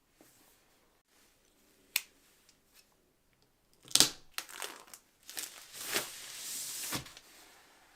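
Packaging being handled: a few sharp clicks and knocks, the loudest about halfway through, then a longer crinkling, rustling stretch of plastic or paper wrapping ending in another knock.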